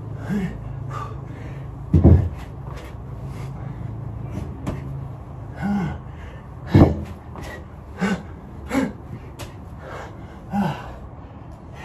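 A person breathing hard after an exercise set, with short, sharp exhales every few seconds. Two heavy thuds land about two and seven seconds in.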